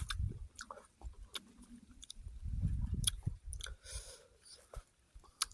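A person chewing fruit close to the microphone, in two short spells with scattered small clicks and crunches.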